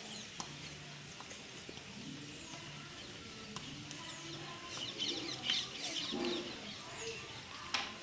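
Chalk scratching on a blackboard as a word is written, in short strokes that come most thickly in the second half.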